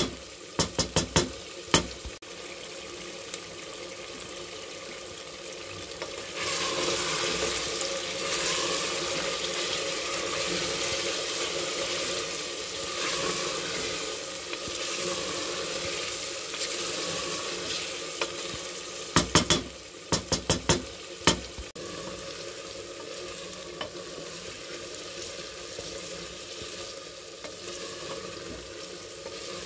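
Mutton pieces frying and sizzling in an aluminium pressure cooker while a wooden spoon stirs them. A cluster of sharp knocks of the spoon against the pot comes in the first two seconds and again about twenty seconds in. The sizzle grows louder from about six seconds in until about eighteen seconds.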